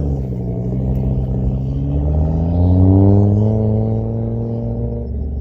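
Race car engine running hard as it comes through the finish of a drag run, its pitch rising and growing louder to a peak about three seconds in, then levelling off and easing as it passes.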